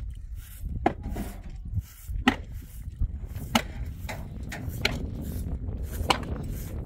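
A series of sharp knocks, about one every second and a quarter, over a steady low rumble.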